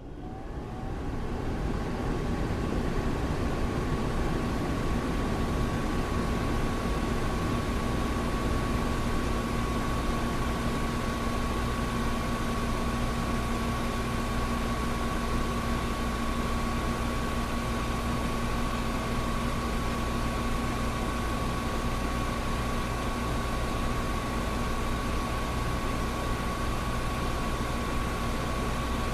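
Air conditioner running: a steady rush of air over a low hum, with a steady whine. It rises in level over the first two seconds, then holds steady.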